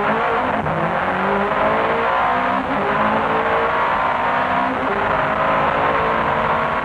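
Nissan R90CK's 3.5-litre twin-turbo V8, running its wastegates stuck shut, pulling hard along a straight, heard from inside the cockpit. Its pitch climbs slowly and steadily.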